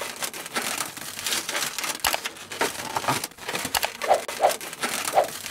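Latex modelling balloons rubbing and crinkling, with three short squeaks near the end.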